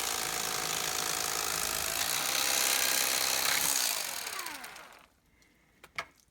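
Electric carving knife running while cutting through herring, then switched off about four seconds in, its motor winding down with a falling whine. A single sharp click follows near the end.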